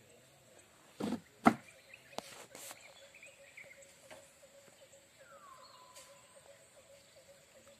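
Spinning fishing reel being cranked to wind in a hooked fish on a bent rod: a faint steady whirr with fine regular ticking, after a few sharp knocks about a second in, the loudest at about one and a half seconds. A short falling whistle sounds about five seconds in.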